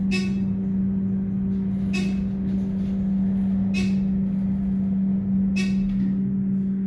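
Dover traction elevator car travelling down its hoistway: a steady hum with a low rumble, broken by a short, sharp ringing tick about every two seconds.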